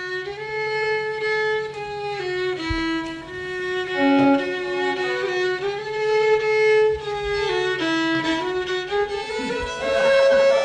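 Fiddle playing a slow old-time melody in long held notes, over a steady low drone that drops out about eight seconds in.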